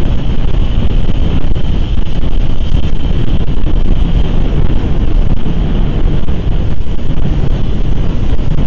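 Strong wind buffeting an outdoor microphone: a loud, steady low rumble with a constant hiss above it.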